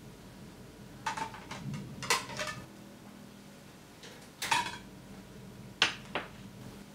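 Plastic food containers being handled on a table: a handful of sharp clicks and knocks as tubs and lids are picked up and set down, over a faint low hum.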